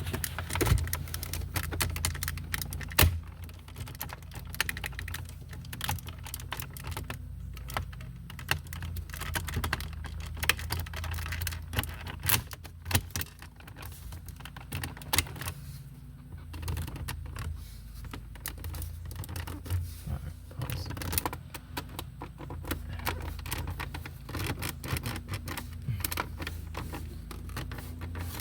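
Hard plastic clicks, taps and rattles of a Lexus IS250 radio and climate-control console being handled, lined up and pushed into the dash, irregular and continual, over a steady low hum.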